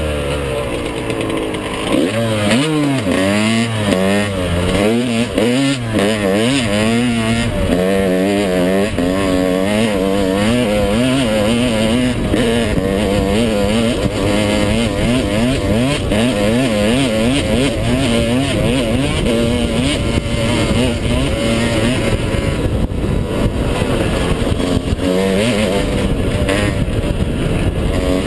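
Yamaha YZ125 two-stroke single-cylinder dirt bike engine revving hard under riding, its pitch rising and falling again and again with the throttle. Wind noise rushes over the helmet-mounted microphone.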